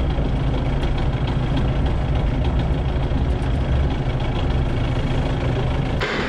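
Manitou telehandler's diesel engine running steadily, heard from inside the cab as a low rumble. It cuts off abruptly shortly before the end.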